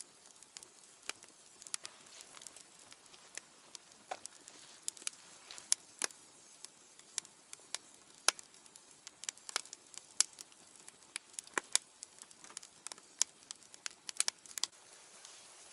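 Wood fire burning in a small fire grill: irregular sharp crackles and pops, several a second, over a faint hiss.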